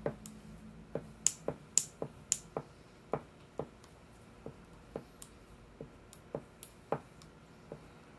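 Wax crayon drawing quick short strokes on paper, a light tick with each stroke, irregularly at about two a second.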